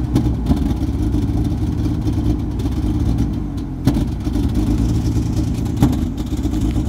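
WWII half-track's engine running at idle, steady but slightly uneven, with a couple of brief sharp knocks about four and six seconds in.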